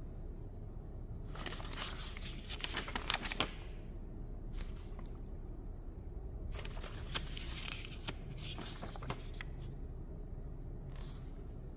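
Pages of a small paper booklet being turned by hand: several bursts of paper rustling with small flicks, the longest about a second in and again past the middle.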